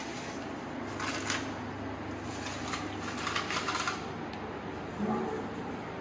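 A sheet of paper rustling and crinkling in short bursts as it is folded and handled, about a second in and again for a second or so in the middle.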